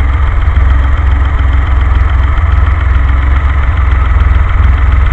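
Carbureted DeLorean PRV V6 idling with a steady, fast low pulse while its idle outlet screws are opened too far. This lets too much idle mixture into the venturi bores, and the idle is beginning to deteriorate.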